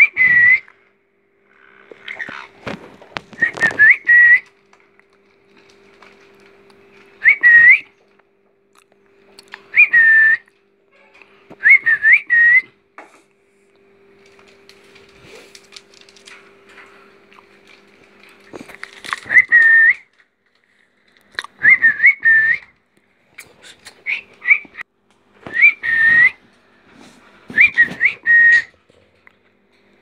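Short whistles, each a quick rise and fall, coming singly or in twos and threes every few seconds, with light scratches and taps between them. A steady low hum runs underneath and stops about two-thirds of the way through.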